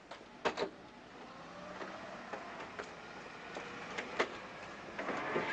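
Faint street noise with a motor vehicle running, growing louder toward the end. Two sharp knocks come about half a second in and two more around four seconds in.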